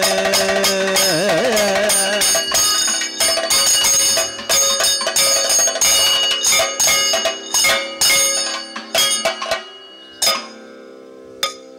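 Kathakali accompaniment: a sung line ends about two seconds in, then chenda and maddalam drumming with the ringing metal strokes of the chengila gong and ilathalam cymbals, thinning out near the end over a steady drone.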